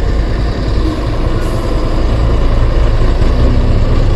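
Motor vehicle engines running in slow traffic: a loud, steady low rumble, with an engine hum growing stronger near the end.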